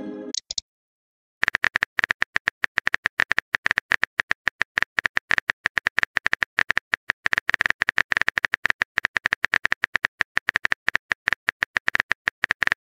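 Phone-keyboard typing sound effect: a fast, even run of small clicks, many a second, starting about a second and a half in. It follows the end of a short message-sent chime at the very start.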